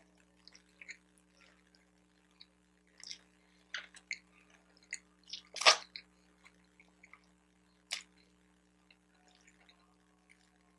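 Close-miked chewing of a bacon, egg and Swiss cheese everything bagel sandwich: scattered wet mouth clicks and smacks, with one loud burst of noise about halfway through. A faint steady hum runs underneath.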